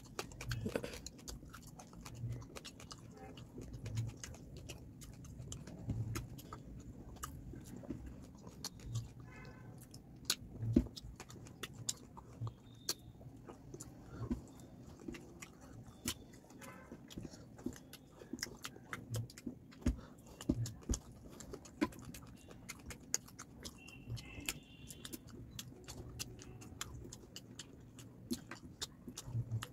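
Eating by hand from a plate of fish curry and rice: soft chewing and mouth sounds, with many small irregular clicks and taps as fingers pick at the fish and rice on the plate.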